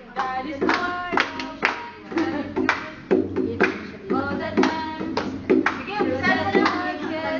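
A group of girls singing along to an acoustic guitar, with hands clapping throughout.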